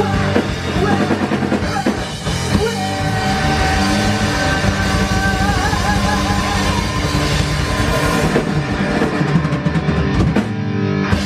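Rock band playing loudly live, with drum kit, electric guitar and bass, while one long high note is held from about three seconds in and wavers before it ends.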